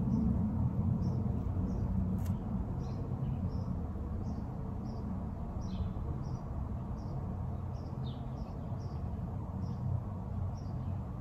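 Small birds chirping: short high calls repeating about twice a second, over a steady low room rumble, with a single click about two seconds in.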